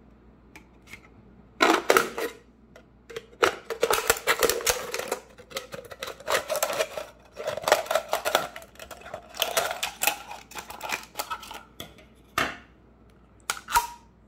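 Scissors cutting around a thin aluminium drink can: a dense, irregular run of snips and crinkling metal from about two seconds in to about twelve seconds, with a couple more clicks near the end.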